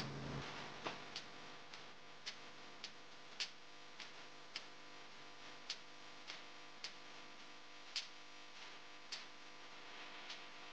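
Faint, regular ticking, a click roughly every half second with every other one a little stronger, over a low steady hiss.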